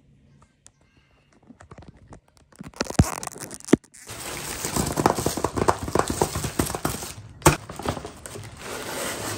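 Packaging being handled and torn open: scattered small clicks, two sharp knocks about three seconds in, then continuous crinkling and tearing of wrapping from about four seconds, with one more sharp knock past the middle.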